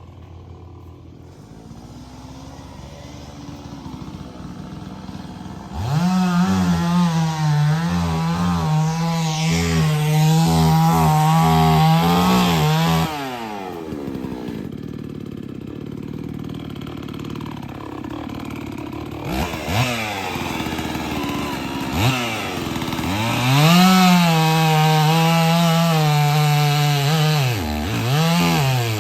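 Two-stroke chainsaw run at full throttle through a cut, its engine note wavering under load. It drops back toward idle about halfway through and is blipped twice, then held at full throttle again for another cut near the end.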